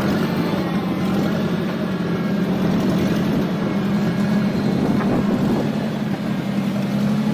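Heavy-equipment engine running steadily under work, a constant low drone.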